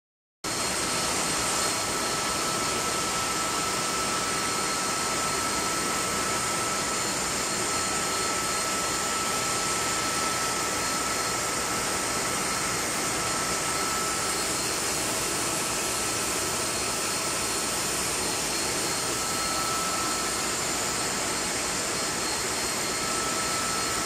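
Refrigeration compressor-room machinery running steadily: a loud, even mechanical noise with a constant high-pitched whine.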